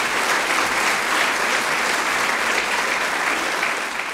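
Audience applauding, a steady clatter of many hands clapping that begins to die away near the end.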